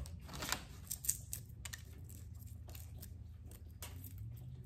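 Irregular crisp crackling and snapping as the overcooked outer leaves of oven-roasted Brussels sprouts are peeled off by hand; the leaves are roasted very crispy.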